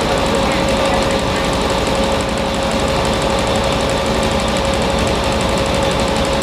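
Steady running noise of a standing WAP7 electric locomotive's on-board machinery: a constant mechanical din with a steady hum, unchanging throughout.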